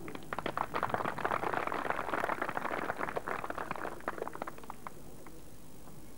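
Audience applauding: a burst of clapping that builds quickly and dies away after about four seconds.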